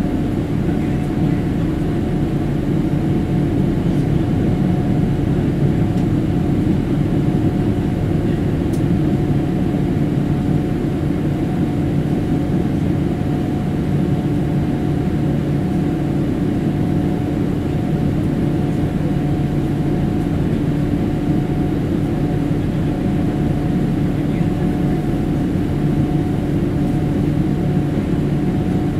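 Steady cabin roar of a Boeing 787-8 climbing out, heard from a window seat beside its Rolls-Royce Trent 1000 turbofan. Rushing air and engine noise is overlaid with a steady hum of a few fixed tones.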